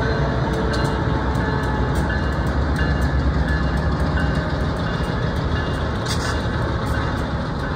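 A KLW SE10B diesel switcher and a rebuilt Alco diesel switcher rolling slowly past on street-running track, their engines running with a steady low rumble and the wheels giving off scattered sharp clicks on the rails.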